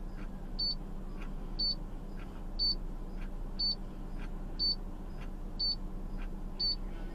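A short, high electronic beep repeating about once a second, over a steady low hum.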